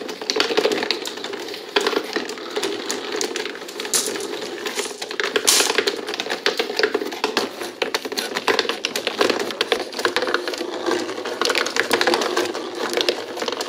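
Glass marbles clicking and clattering on a working cardboard escalator marble run, riding up the moving steps and rolling down the cardboard track, in a dense, continuous rattle of small clicks.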